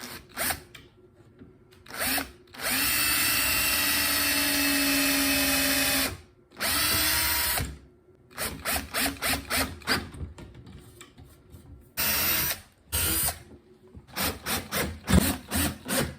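Electric drill-driver running in bursts: one long run of about three and a half seconds, a shorter run, then a string of quick trigger taps near the end.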